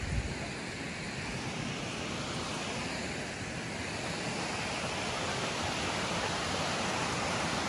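Steady rushing of a waterfall sliding down a rock face and a rocky creek's rapids, with a brief low bump near the start.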